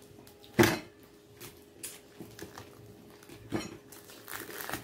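Dishes and cutlery clattering on a table while fried pork is torn apart by hand: a sharp loud knock about half a second in, another about three and a half seconds in, and small clicks between.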